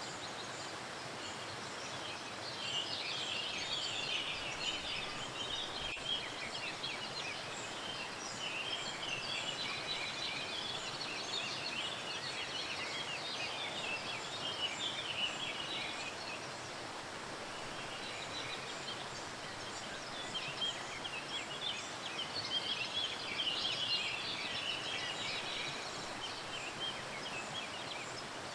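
Many small birds chirping in dense, overlapping chatter over the steady rush of a waterfall. The chirping comes in two long swells, one through the first half and another near the end.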